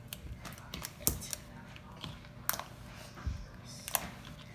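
Freshly activated glue slime being squished and worked by hand close to the microphone, giving irregular sharp clicks and pops.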